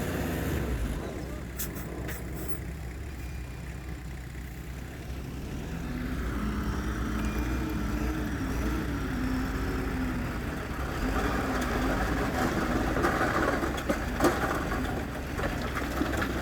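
Heavy diesel earthmoving machinery running with a steady low rumble. The engine pitch wavers up and down through the middle, with a few light knocks.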